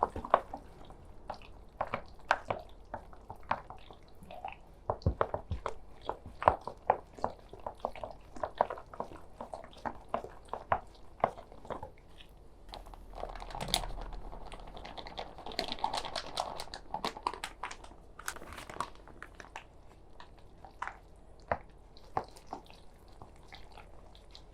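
Close-miked chicken nugget preparation: a string of irregular small clicks and taps as the food and utensils are handled. A denser, rustling stretch comes about 13 to 17 seconds in.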